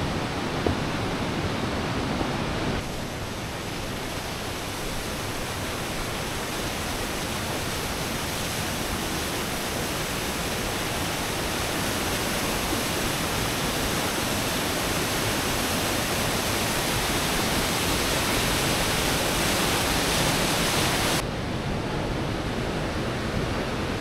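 Rushing water of a mountain valley stream cascading over rocks, a steady full hiss. Its tone shifts abruptly about three seconds in and again near the end.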